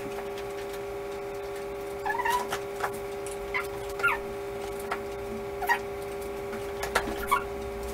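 Domestic cat giving short, high chirps and mews while chasing a wand toy, about six of them starting some two seconds in, over a steady hum.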